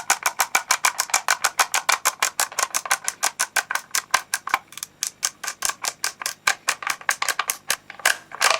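Detented adjustment wheel of an ICS UKSR sniper stock's cheek rest being turned, giving a fast, even run of clicks at about seven a second. Near the end a louder rattling scrape comes in as the cheek rest works loose.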